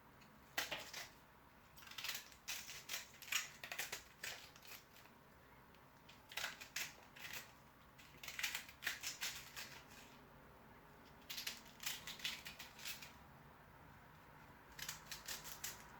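Knife cutting vegetables on a chopping board, in about six runs of quick, sharp cuts with short pauses between.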